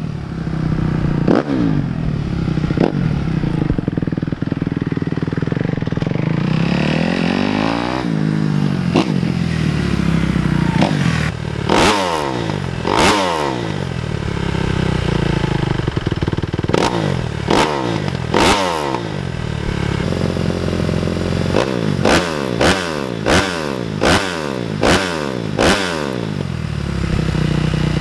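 Kawasaki KX250F four-stroke single-cylinder dirt bike engine through an FMF Factory 4.1 RCT slip-on exhaust. First it is ridden about, the pitch sweeping up and down; then, held in place, it is revved in sharp blips, quick ones about one every three-quarters of a second near the end.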